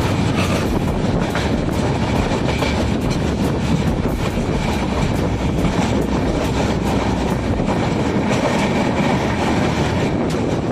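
Indian Railways LHB express coach running at speed: a steady rumble of wheels on track with a quick, irregular run of clicks as the wheels cross rail joints.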